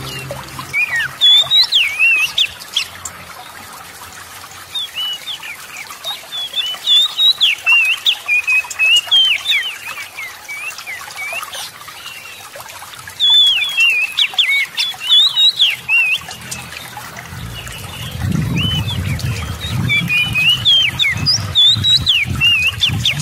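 Oriental magpie-robin singing: bouts of varied, rapid whistled notes that slide up and down, with short pauses between bouts. A low rumble runs under the song over the last few seconds.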